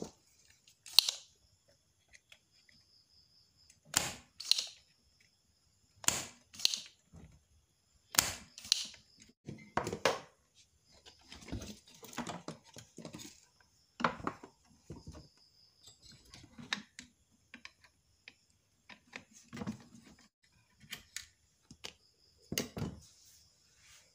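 Sharp snaps and clicks from desoldering work on a CRT TV's main board as the vertical deflection IC is taken off. Several snaps come in pairs about half a second apart, with quieter ticks and knocks between them.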